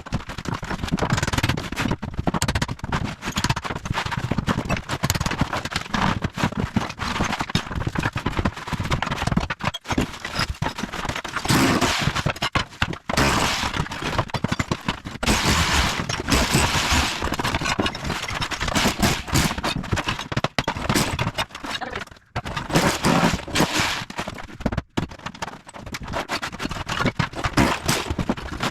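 Bosch Bulldog Max SDS Plus rotary hammer driving a tile chisel through floor tile and cement board: rapid continuous hammering with tile cracking and breaking. It stops briefly about ten seconds in and twice more near the end.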